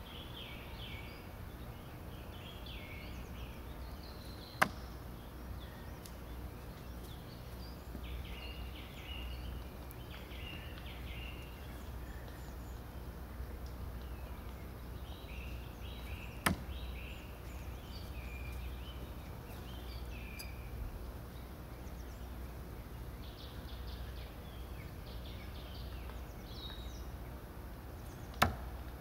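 A stainless-steel Profi throwing knife, thrown from 4 m, striking the target three times, each hit a single sharp thunk about twelve seconds apart. Birds chirp faintly in between over a low steady hum.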